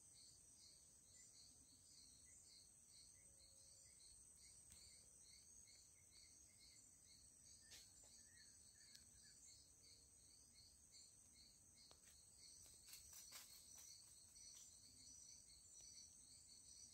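Faint insect chorus: a steady high trill with a chirp pulsing a few times a second, plus a few faint clicks about two-thirds of the way through.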